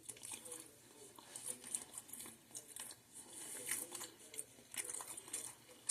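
A person chewing a bite of sauced boneless orange chicken: faint, irregular wet smacking and clicking mouth sounds.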